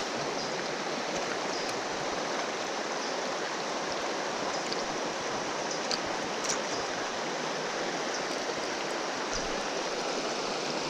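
Creek water rushing over rocks in a shallow rapid, a steady rush, with a couple of faint clicks about six seconds in.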